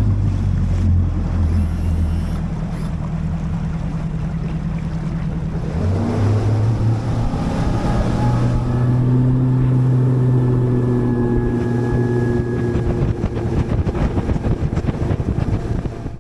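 Four-stroke outboard motor on a Nitro Z21 bass boat running under way, with wind buffeting the microphone. The engine's pitch steps up about six seconds in as the throttle opens, holds steady, then drops away at the very end.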